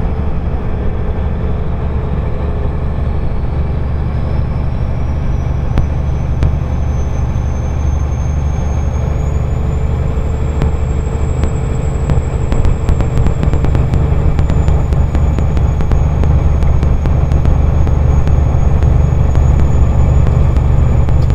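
Turbocharger whistle over the vehicle's low engine and road rumble while driving. The thin high whine climbs in pitch over the first half, then settles slightly lower and holds, while the rumble grows a little louder near the end.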